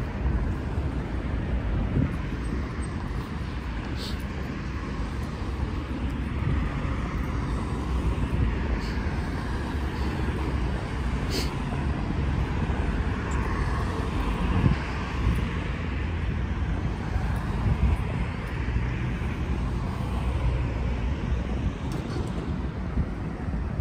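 City street ambience: a steady wash of car traffic on a wide multi-lane road, with a few faint clicks.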